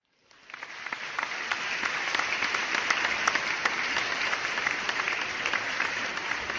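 Audience applause: many hands clapping in a dense patter that swells up over about a second and then holds steady.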